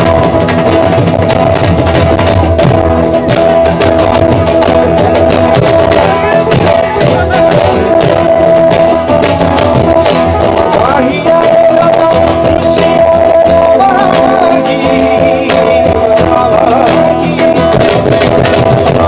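Live band music played loud: a strummed acoustic guitar with a dhol drum beating and an electric guitar. A voice sings over part of it, from about 11 seconds in.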